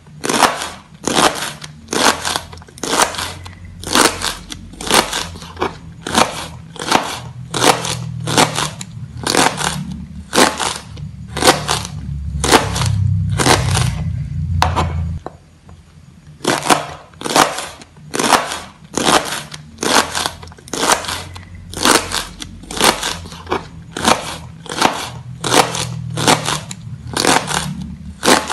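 Kitchen knife slicing a bundle of young petai Cina (lamtoro) pods on a plastic cutting board: a crisp chop about twice a second, with a short pause about halfway through.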